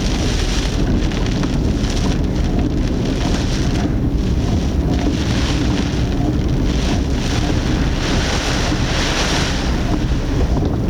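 Typhoon wind and rain against a moving car, picked up by its dashcam: a heavy steady rumble with repeated surges of hiss as gusts hit.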